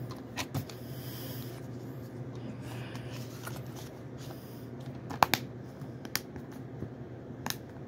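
Handling of a plastic DVD case and its paper guide: light rustling and a few sharp plastic clicks, the loudest a double snap about five seconds in as the case is closed. A steady low hum runs underneath.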